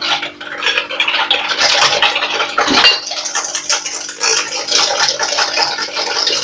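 Cake batter of eggs, sugar and oil being stirred briskly in a bowl, the utensil scraping and clinking rapidly against the bowl.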